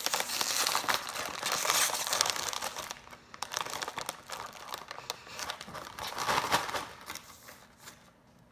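Potato chip bag crinkling and tearing as it is pulled open by hand. The crinkling is loudest over the first two seconds, then comes in sparser crackles that die away near the end.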